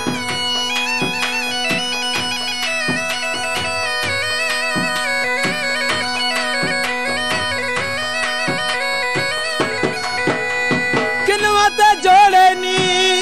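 Background folk-style music: a piping melody over a steady held drone, with a steady drum beat. A wavering voice joins near the end.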